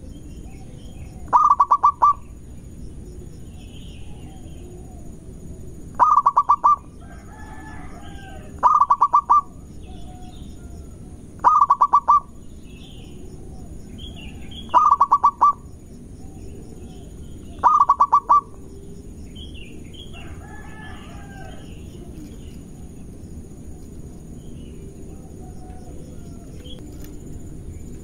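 Zebra dove (perkutut) singing its cooing song six times, each a quick run of pulsed coos, a few seconds apart, then falling silent for the last third. Faint chirps of other small birds in the background.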